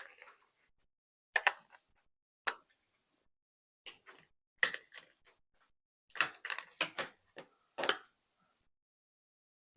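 Small metal hex keys clinking and clicking as they are picked out of a set and tried in a hex-head screw. There are about a dozen short, sharp clicks, some in quick clusters, and the loudest fall around five and seven seconds in.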